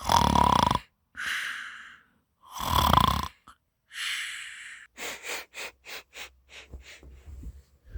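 A person doing pretend snoring: two loud, rough snores on the in-breath, each followed by a breathy out-breath. After them comes a run of short, light taps and clicks.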